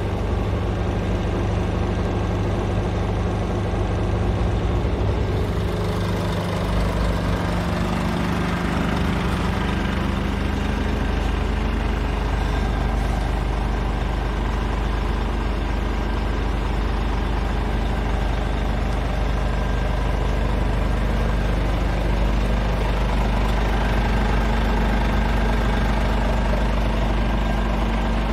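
Scania R410 tractor unit's 13-litre inline-six diesel idling steadily.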